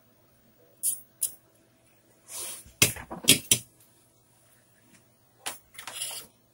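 Sharp clicks and clacks with a few short scraping hisses, from a circuit board and soldering tools being handled while capacitors are desoldered. The clicks come one at a time, about half a dozen, with a faint steady hum underneath.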